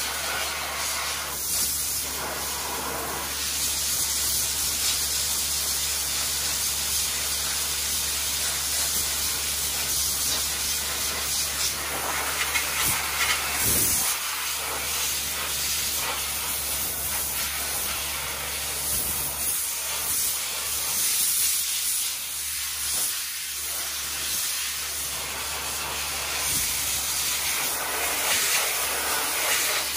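Dry ice (CO2) blasting gun firing a steady loud hiss of compressed air and dry ice pellets against a truck's undercarriage and suspension, with small surges as the nozzle moves. It is stripping grime to prep the metal for paint and undercoating.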